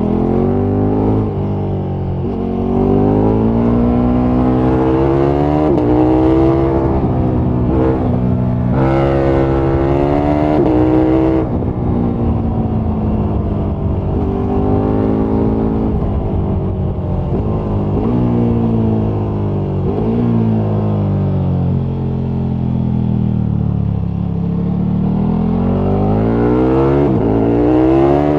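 KTM 1290 Super Duke R's 1301 cc V-twin pulling hard through the gears, its pitch climbing in steps with a short break at each upshift. Past the middle it eases off, rising and falling with the throttle as speed drops, then pulls hard again near the end.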